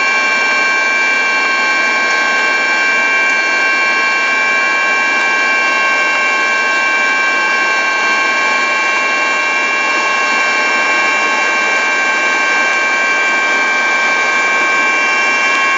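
Helicopter turbine engines running steadily: an unbroken rushing noise with several high whining tones held over it.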